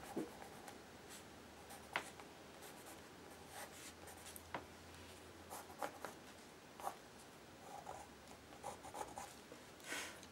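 Black Faber-Castell colored pencil scratching faintly over a painted page in short outlining strokes, with a few small clicks.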